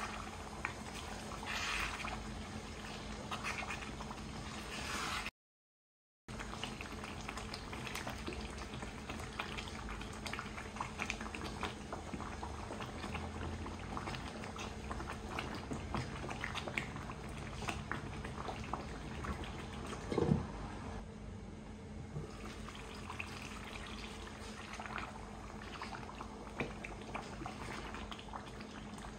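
Pot of food bubbling and simmering on the stove with many small ticks over a steady hum, cutting out for a moment about five seconds in. A short pitched call that rises and falls comes about twenty seconds in.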